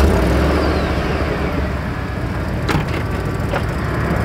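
Chevy Suburban V8 running at idle with a steady low hum, and the driver's door slammed shut about two-thirds of the way in, with a second sharp knock just after.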